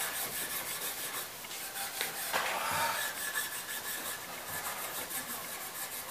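A cloth rubbed back and forth over cello strings: a repeated scratchy rubbing, stroke after stroke.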